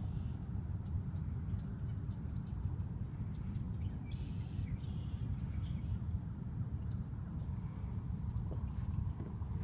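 Steady low wind rumble on the phone's microphone, with a few short bird calls about four and five seconds in.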